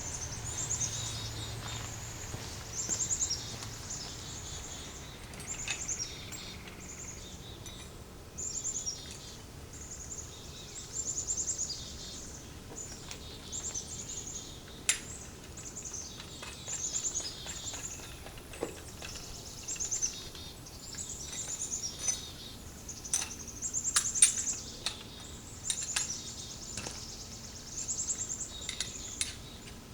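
Birds singing: short, high trilled phrases repeated every second or two, with scattered sharp clicks.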